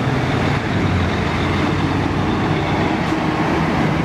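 A steady, loud motor-like rumble with hiss and a low hum, unbroken throughout.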